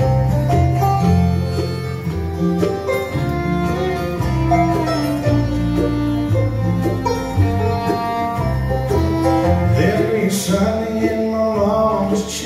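Live bluegrass band playing an instrumental passage: fiddle, acoustic guitar, mandolin and upright bass together, with a steady bass line under the picking.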